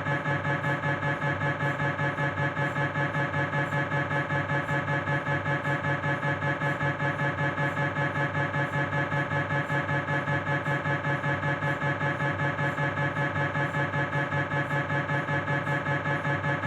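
Philips 1.5 T MRI scanner's gradient coils knocking in a fast, even rhythm of about five buzzing pulses a second, each with several pitches at once. This is the pulse train of a fat-suppressed proton-density transverse knee sequence.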